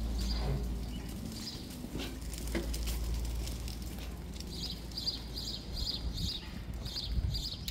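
Footsteps on wet pavement at a steady walking pace, a soft splashy step about two to three times a second. A low rumble fades out over the first half.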